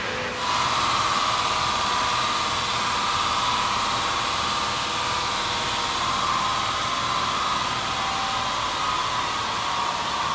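Range Rover running on a rolling-road chassis dynamometer: a steady rushing noise of the drivetrain, tyres on the rollers and cooling air, with a whine over it. It starts about half a second in, then holds at an even level.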